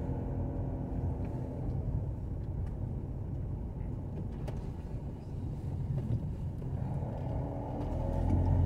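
A car driving slowly, heard from inside the cabin: a steady low rumble of engine and tyres, growing louder near the end.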